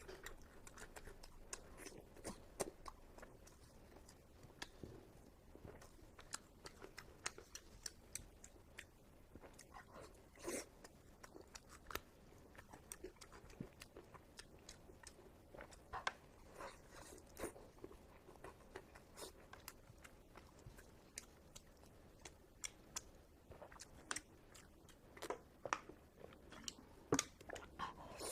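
A person chewing steamed pork close to the microphone: faint, with many small irregular mouth clicks throughout.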